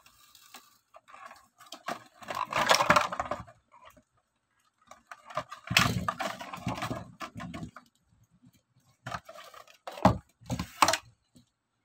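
Clear plastic blister packaging crinkling and crackling in two bursts as it is pulled apart by hand, followed by a few sharp clicks and taps near the end as the plastic pieces are handled.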